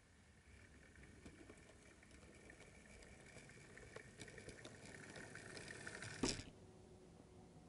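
Model 0-6-2 tank locomotive approaching, its motor giving a faint high whine with small clicks from the wheels over the pointwork, both growing louder. About six seconds in, one sharp knock as it buffers up to the van, and the whine cuts off.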